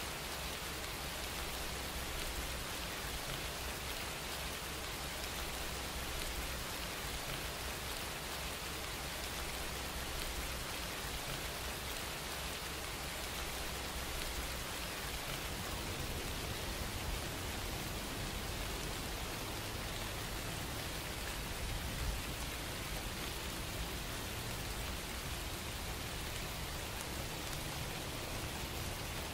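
Steady rain-like hiss from a background ambience track, with a low hum underneath that steps up in pitch about halfway through.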